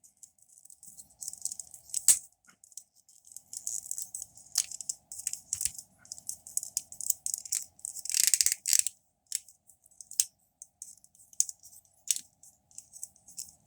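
Plastic parts of a Transformers Cheetor action figure clicking and rattling as they are flipped and clipped into place by hand. The clicks are short and irregular, with a denser run of handling noise about eight seconds in.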